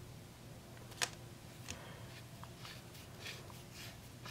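Handling noises from a flashlight: one sharp click about a second in, then a few faint scrapes and rustles.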